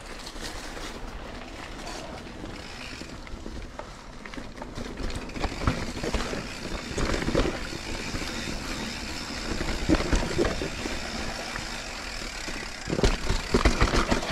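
Mountain bike rolling over a rough, rocky trail: steady tyre and ground noise, with irregular knocks and rattles from the bike that grow louder from about halfway through.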